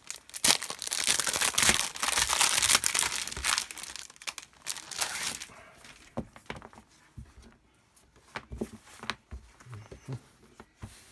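Clear plastic packaging sleeve crinkling loudly as it is opened and a cloth-topped mouse pad is pulled out, for about five seconds. Then softer scattered taps and rustles as the pad is handled and laid flat.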